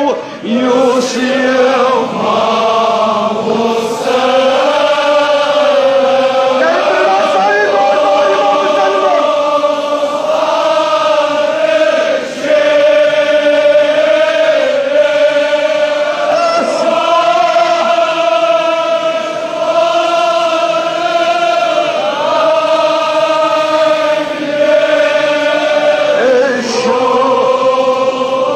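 Men's voices chanting a Kashmiri marsiya (elegy) together, in drawn-out melodic lines with long held notes.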